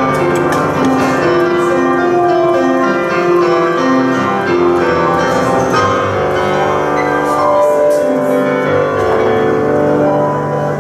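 Solo piano improvisation: a melody moving over held bass notes and chords.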